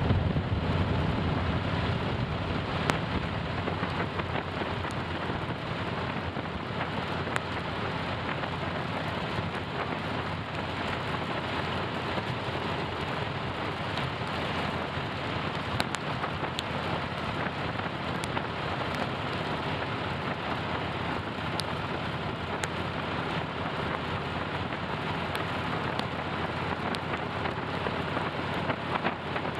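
Rain and rushing air on a moving motorcycle: a steady hiss, with scattered sharp ticks of raindrops striking close by.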